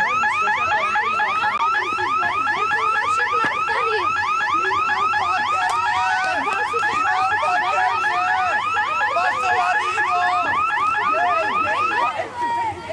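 Electronic alarm siren wailing in fast rising whoops, about four or five a second, sounding the alarm. It cuts off near the end.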